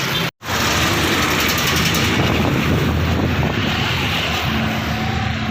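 Road traffic noise: the steady rush of engines and tyres of passing vehicles, broken by a moment of silence just after the start.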